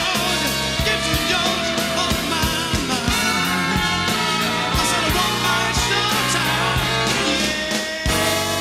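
Live band music from a soul concert, with drums, bass and sustained pitched lead parts, heard off an FM broadcast taped on cassette.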